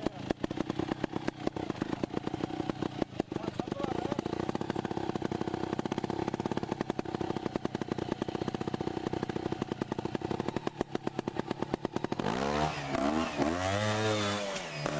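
Trials motorcycle's two-stroke engine running at low revs with a rapid, even pulsing. About twelve seconds in, the throttle is blipped and the engine rises and falls in pitch several times.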